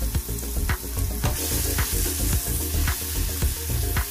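Chopped onions and tomatoes sizzling in hot oil in a cooking pot; the sizzle grows louder about a second in. Background music with a steady beat plays along.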